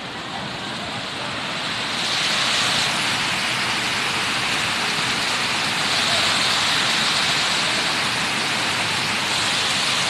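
Water spilling over a pool's concrete overflow edge in a low cascade: a steady rushing that grows louder about two seconds in.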